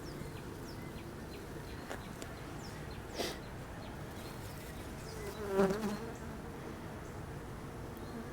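Honeybees of a queenless colony humming steadily over the open hive, with a light knock about three seconds in and a brief louder sound a little past halfway.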